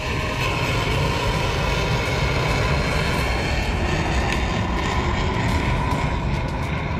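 Ship-launched missile's rocket motor, a steady rushing noise as the missile climbs away overhead just after launch.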